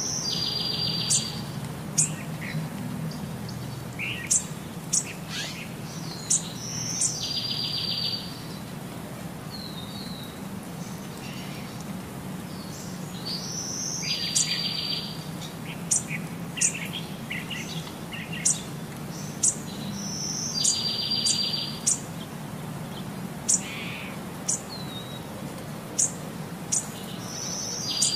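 Birdsong: short, sharp high chirps and a buzzy trill that recur in the same pattern about every six and a half seconds, as in a looped recording, over a steady low hum.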